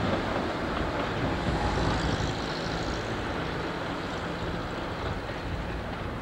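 InterCity 125 High Speed Train with its Class 43 diesel power car running over the yard tracks, a steady rumble of engine and wheels that slowly fades as the train moves away.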